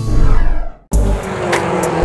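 Background music that cuts off abruptly just under a second in, with another piece of music starting right after.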